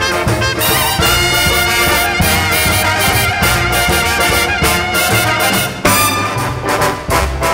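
Background music: an upbeat swing instrumental led by brass, over a steady beat.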